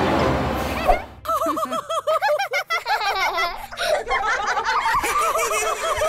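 A group of cartoon characters laughing together, many voices overlapping in giggles and chuckles. The laughter starts about a second in and goes on to the end.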